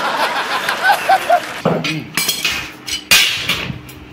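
A man laughing heartily for about a second and a half, then a few sharp metallic clinks of a hammer striking steel reinforcing rods, the loudest about three seconds in.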